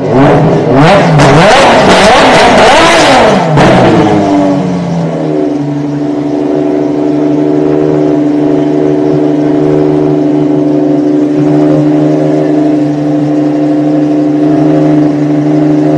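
Ferrari FXX-K Evo's V12 engine revved in a quick series of throttle blips, the pitch rising and falling several times, then settling to a steady idle about five seconds in.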